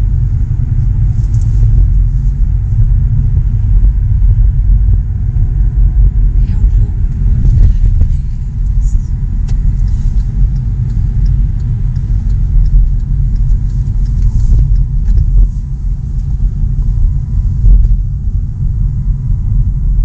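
Steady low road and engine rumble of a car being driven, heard from inside the moving car.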